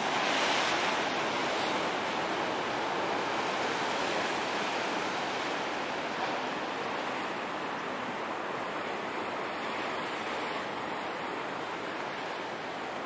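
Ocean surf washing in along the beach, a steady rushing noise that swells in the first couple of seconds and then eases a little.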